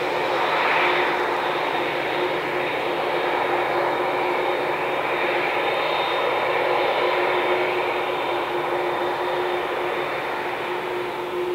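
Boeing 787-8 airliner's GE GEnx-1B jet engines running at taxi power as it taxis past. A steady rush of noise carries a held low hum and a faint high whine, and it is loudest about a second in.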